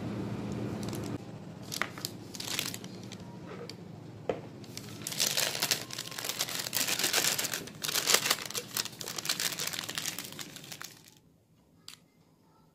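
Plastic piping bag crinkling and rustling as it is handled and gathered closed around the buttercream, densest in the middle stretch and dying away near the end. A low steady hum is heard until about a second in.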